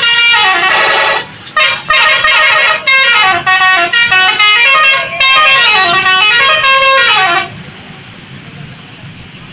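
Bus 'telolet' musical horn playing a loud multi-note tune in several short phrases, the notes stepping and gliding up and down. It stops about seven and a half seconds in, leaving traffic noise.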